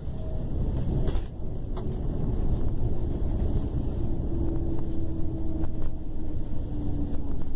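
Long-distance coach's diesel engine running with a steady low rumble, and a faint whine in it that shifts in pitch, stepping up partway through and down near the end.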